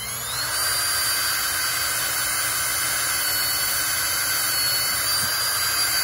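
Electric drill boring a pilot hole into a timber: the motor spins up with a rising whine at the start, then runs steadily under load.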